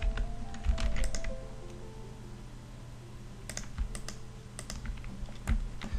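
Computer keyboard keystrokes, scattered single taps and short clusters, as shortcut keys are pressed, over faint background music.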